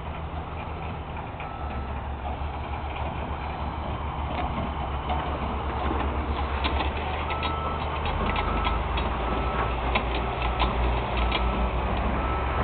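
A John Deere backhoe's diesel engine running with a steady low rumble that grows a little louder. From about halfway through, a short beep repeats roughly twice a second, with scattered faint clicks.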